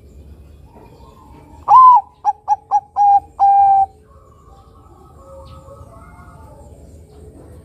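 Zebra dove (perkutut) of a Bangkok–local cross singing one phrase of its song, starting a little under two seconds in: a long falling note, a quick run of three short notes, then two longer held notes. The phrase lasts about two seconds.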